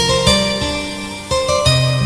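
Background music: gently plucked notes, guitar-like, in a soft melody.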